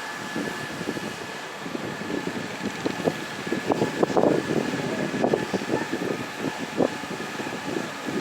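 Riverboat engine running steadily with a constant high whine, while wind buffets the microphone in irregular gusts, strongest around the middle.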